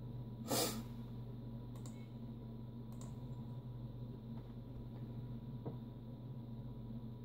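A few faint computer-mouse clicks over the low steady hum of a running desktop PC, with one brief louder rustle about half a second in.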